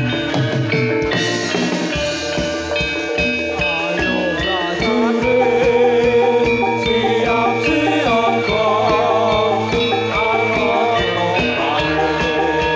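Live Javanese jathilan accompaniment: gamelan-style metallophones ringing sustained notes over a steady drum beat, with a singer's wavering vocal line joining about four seconds in.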